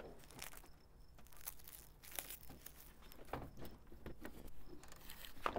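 Faint handling noises of a plastic headlight assembly being worked into place against the bumper: scattered light clicks, scrapes and rustles, with a sharper click near the end.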